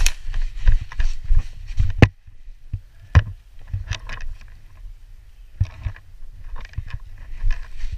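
Running footsteps and the jolting of a body-worn camera, a string of low thuds, with a few sharp clicks about two and three seconds in. The thudding eases off in the middle and picks up again near the end.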